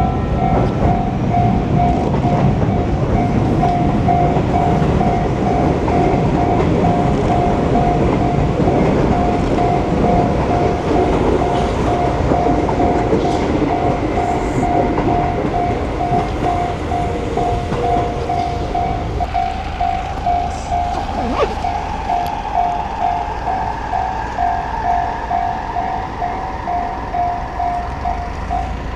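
Japanese level-crossing warning bell ringing in a rapid, even rhythm while a train passes close by with loud rumbling and rail clatter. The train noise drops away about two-thirds of the way through, leaving the bell and a faint rising whine.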